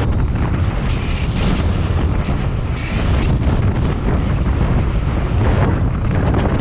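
Wind buffeting a bike-mounted camera's microphone on a road-bike descent: a loud, steady rumble heaviest in the low end.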